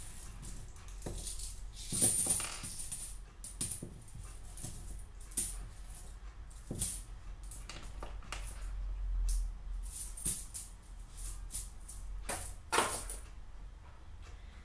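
Coins (quarters, dimes and pennies) clinking and jingling as they are handled and dropped together: a run of irregular metallic clicks, with louder clatters about two seconds in and near the end.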